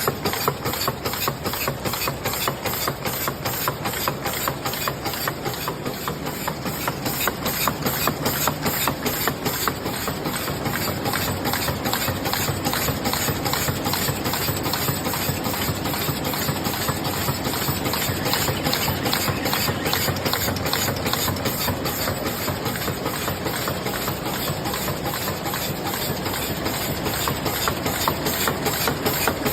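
Double-wall paper cup forming machine running: a steady, rapid, even mechanical clatter with a hiss underneath.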